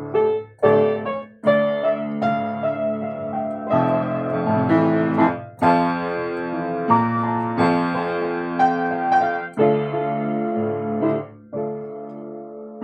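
Piano played solo: chords with sustained bass notes and a melody on top, broken by short pauses between phrases, without singing.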